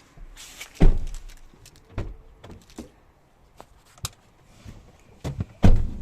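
A series of knocks and thuds, with two heavy thumps, one about a second in and one near the end, and lighter knocks between them.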